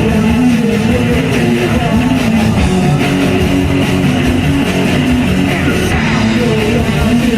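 A punk rock band playing loud live music, with electric guitar, bass and drums.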